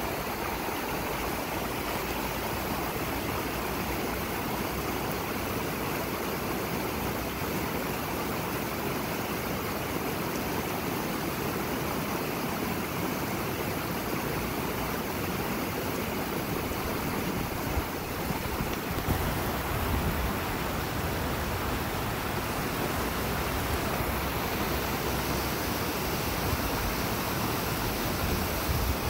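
A shallow, rocky river rushing through whitewater rapids: a steady, dense rush of water over stones. A few brief low rumbles come about two-thirds of the way in.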